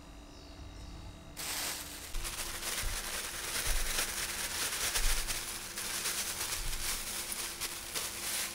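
Clear plastic bag rustling and crinkling as crushed biscuit crumbs are poured from it into a glass bowl, a dense crackling noise that starts abruptly about a second and a half in.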